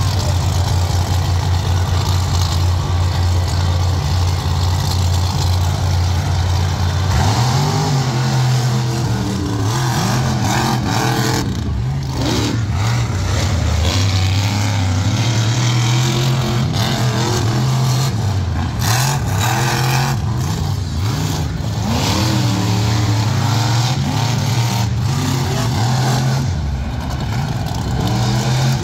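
Monster truck engines idling steadily, then revving hard about seven seconds in as the trucks race. The engine pitch rises and falls repeatedly for about twenty seconds and eases off near the end.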